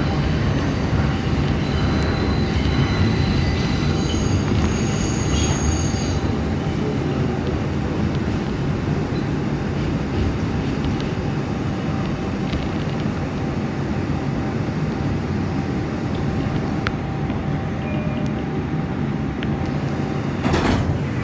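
Bombardier R142 New York subway car in motion, heard from inside the car: a steady rumble of wheels on rails, with thin high-pitched tones over the first several seconds and a short sharp knock near the end.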